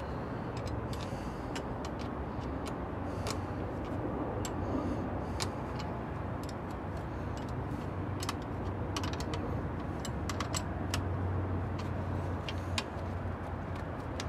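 Scattered light metallic clicks and ticks of a half-inch open-end wrench working on battery terminal clamp nuts as the cables are tightened back down, over a steady low hum.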